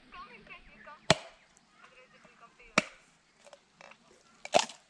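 Curved machete chopping into the husk of a tender green coconut to open it: three sharp blows about a second and a half apart, the last one the loudest.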